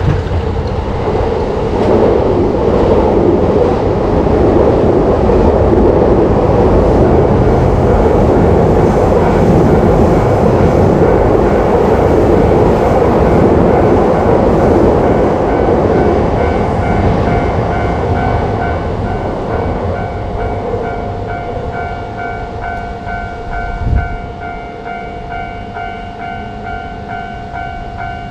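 A train passes with a loud rushing rumble of wheels on rails that fades about two-thirds of the way through. Under it, a railroad crossing warning bell rings in a steady repeating pattern, heard plainly once the train noise dies down. There is a single short thump near the end.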